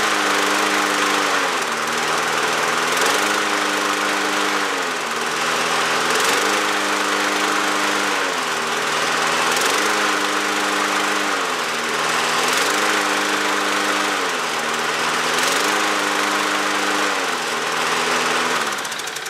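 Single-cylinder Briggs & Stratton Quantum 5.25 hp engine on a push mower running, its speed stepping up and down about every three seconds, with the new throttle being worked through its RPM range.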